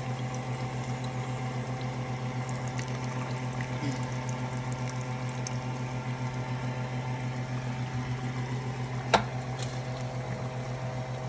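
Juice from a can of mushrooms being poured into a simmering pot of ground beef and diced tomatoes, over a steady low hum. A single sharp click about nine seconds in.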